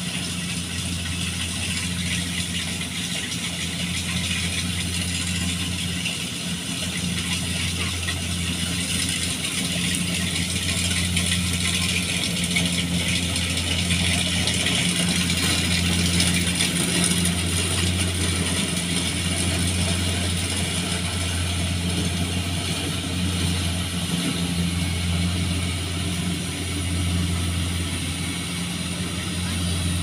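Kubota rice combine harvester working in the field: its diesel engine runs with a steady hum under the rattle of its harvesting machinery. It gets louder towards the middle as the machine comes close, then eases a little.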